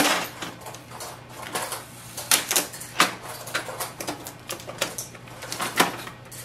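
Blue packing tape being peeled off the plastic inside an inkjet printer's front chamber and handled, giving irregular crackles and clicks, with a sharp snap right at the start.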